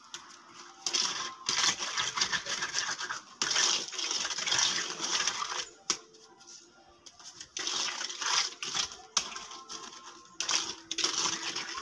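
Trowel scraping and smoothing the surface of a freshly poured wet concrete slab, in several long rasping strokes with a quieter pause a little past the middle.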